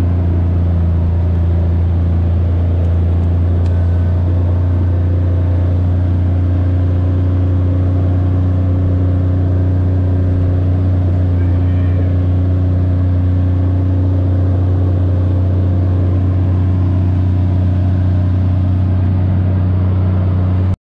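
Steady low drone of a car driving at an even speed, engine and road noise with a few faint steady hums above it; it cuts off suddenly at the end.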